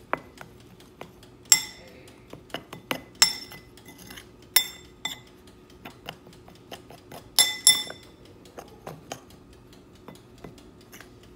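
A metal spoon stirring seasoned flour in a glass bowl. It scrapes and knocks against the bowl in irregular clinks, and the few hardest strikes ring out.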